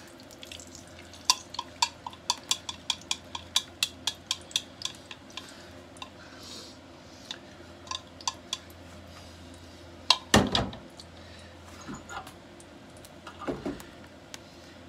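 Chopsticks clinking against a bowl in a quick run, about three clinks a second, as beaten egg is poured out of it into a frying pan. A few more clinks follow, then a louder knock about ten seconds in and a smaller one near the end.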